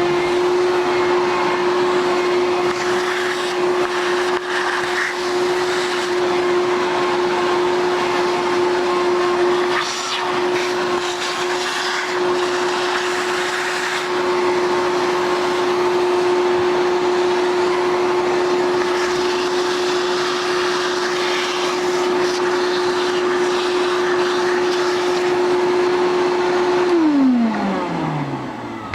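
An electric shop motor spins up to a steady whine with a rushing mechanical noise, runs at constant speed, and then winds down with a falling pitch about two seconds before the end.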